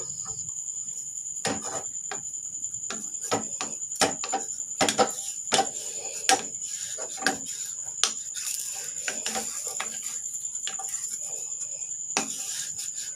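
Wooden spatula scraping and knocking against a metal pan as it loosens the edges of a cooked appam, in short irregular strokes. A steady high-pitched whine runs underneath.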